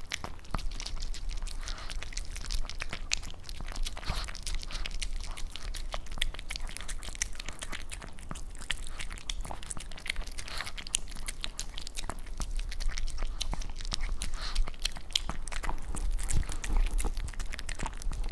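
Pomeranian eating ground raw meat from a plate, picked up close by a microphone beside the plate: steady chewing and biting made of many quick, small clicks.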